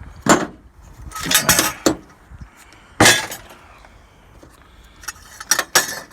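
Small scrap items being handled and dropped, clattering and clinking in several separate bursts. The loudest come about a third of a second in and about three seconds in.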